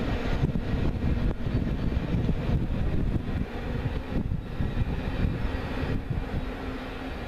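Low rumble of a Norfolk Southern intermodal freight train rolling away, slowly fading, with gusty wind buffeting the microphone.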